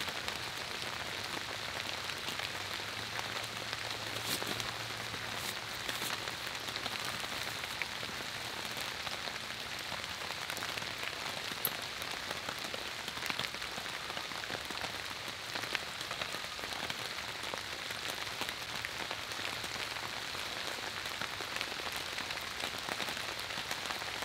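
Steady rain falling, with a few sharper ticks of drops standing out now and then.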